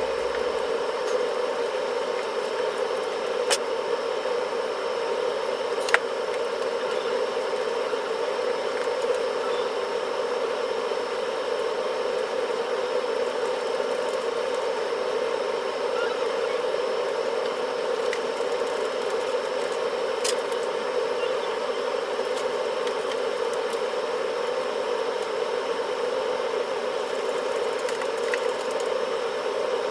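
Air conditioner running with a steady, loud hum. A few short clicks cut through it a few seconds in and again about twenty seconds in.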